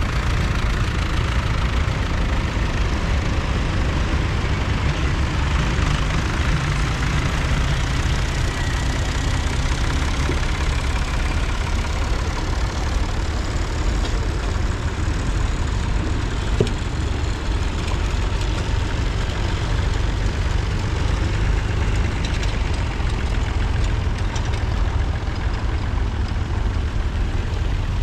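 Tractor engines running as a procession of tractors drives slowly past, a steady engine sound with a strong low rumble.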